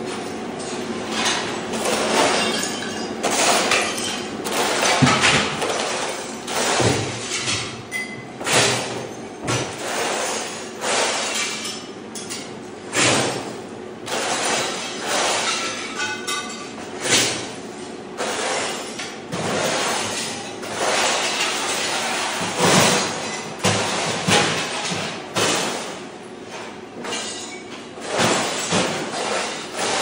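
Ceramic floor tile cracking and clattering as a floor scraper machine's blade breaks it off a concrete slab: a rapid, irregular string of sharp cracks, clinks and knocks over a steady background noise.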